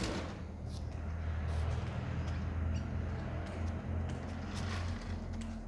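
Battery-powered toy car running under its electric motor, a steady low hum with a rough rolling noise over it and a few faint clicks.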